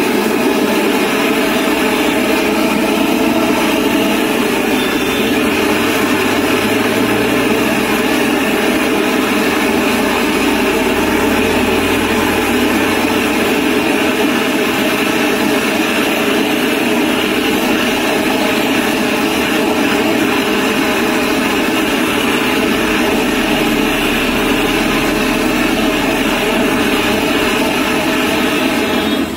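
Handheld gas blowtorch burning with a loud, steady rush of flame as it melts cheese on a plate of food.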